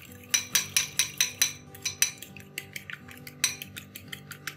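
A metal fork beating a raw egg in a ceramic bowl, the tines clicking against the bowl about four times a second.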